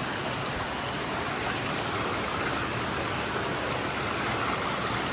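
Steady rush of water, an even hiss with no distinct splashes or breaks.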